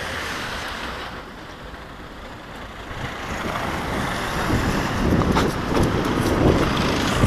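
Road traffic noise, a motor vehicle going by, growing louder over the last few seconds.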